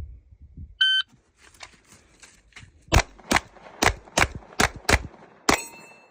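Electronic shot timer's start beep, then seven gunshots fired in quick succession, about three a second, with a ringing note after the last shot.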